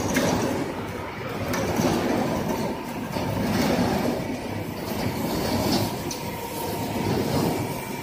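Continuous carbonization furnace machinery running, with its motor and chain-and-sprocket drive turning. A steady mechanical rumble that swells and eases, with a faint steady whine.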